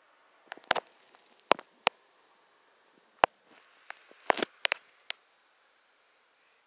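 A dozen or so short, sharp clicks and taps at irregular intervals over a quiet background, with a faint steady high whine coming in about two-thirds of the way through.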